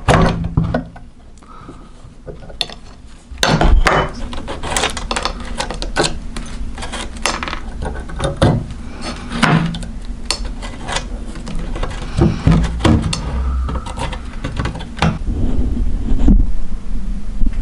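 Meat grinder crushing hard-candy lollipops: a dense run of irregular sharp cracks and clattering crunches over a steady low hum, with a short quieter spell near the start.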